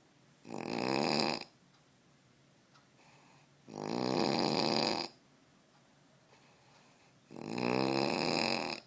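A man snoring in his sleep: three long snores, each about a second long, coming every three and a half seconds or so.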